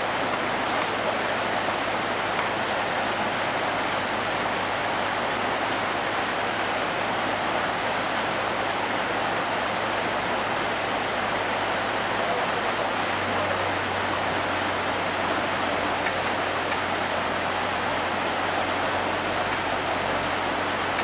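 Steady rushing of river water flowing over rocks, with a low steady hum underneath that drops slightly in pitch about halfway through.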